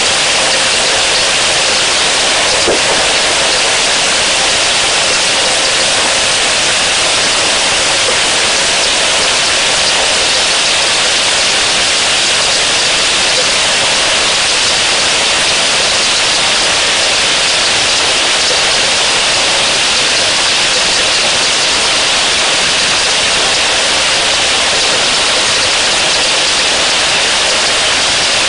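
Rain falling on a waterhole's surface: a loud, steady hiss.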